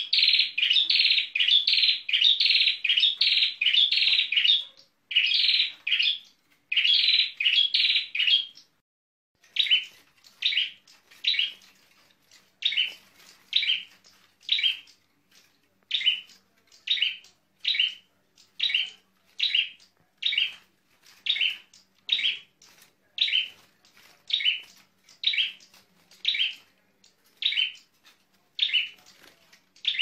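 Ciblek sawah, a small prinia, calling over and over with sharp, high chirps: a fast, crowded run for the first eight or nine seconds, then after a brief pause, evenly spaced chirps about one and a half a second.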